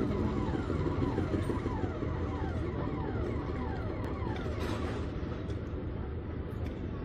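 A motor running with a steady low rumble, over which a repeated falling chirp sounds about twice a second and fades out about five seconds in.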